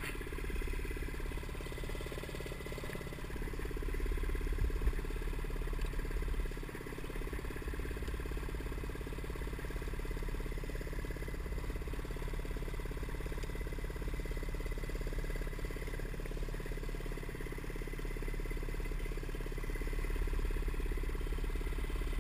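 Paramotor engine idling steadily while warming up on the ground, briefly a little louder around five seconds in.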